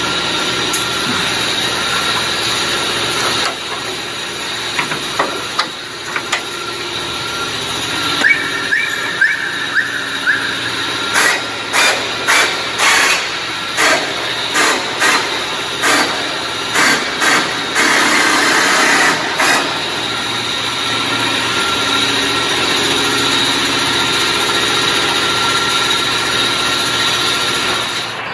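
Workshop tools and machinery at work: a steady mechanical hum, a short grinding or drilling stretch, then a run of sharp, regular knocks about every half second for roughly eight seconds in the middle.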